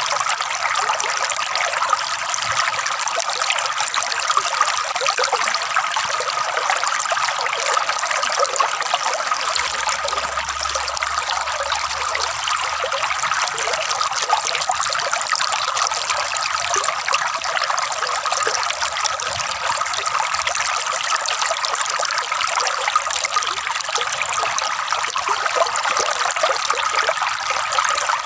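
Flowing water trickling and gurgling steadily.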